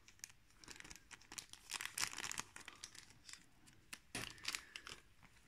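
Clear plastic zip bag crinkling in the hands as it is handled, in faint, irregular bursts.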